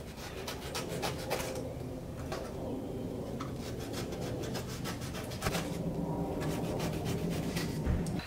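Utility knife cutting and scraping through the pressed-cardboard backing of a car's rear parcel shelf: a run of short, scratchy strokes and small clicks.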